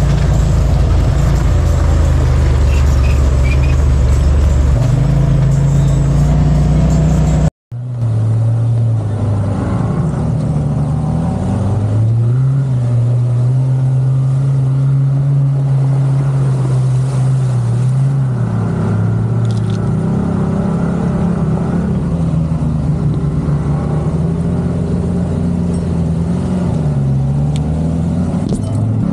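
Vehicle engine running at varying revs, its pitch held level, then rising and falling. The sound drops out sharply for a moment about seven and a half seconds in.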